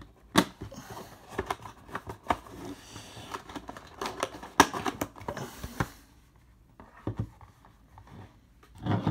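Hands handling a cardboard trading-card box and a plastic card holder: rustling with scattered sharp clicks and taps for several seconds, one tap louder than the rest, then quieter handling, with a brief low sound at the very end.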